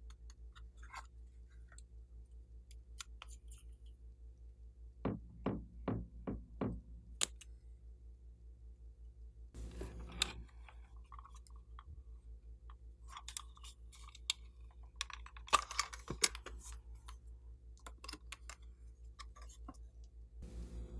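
Handling noises from craft materials: a run of about five sharp taps, then crackling and plastic clicks as a plastic watercolour palette is handled, over a steady low hum.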